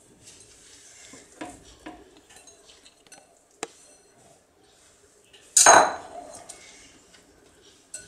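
Stainless-steel pressure cooker and kitchenware being handled on a stovetop: a few light clinks and taps, then one loud metallic clatter about five and a half seconds in.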